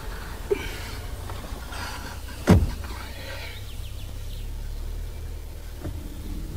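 Car engine running with a steady low rumble while a car door is shut with one sharp thump about two and a half seconds in, with some shuffling around it.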